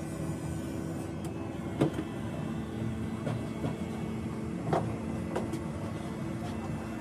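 A steady mechanical hum with a few sharp knocks, the loudest about two seconds in and another near five seconds.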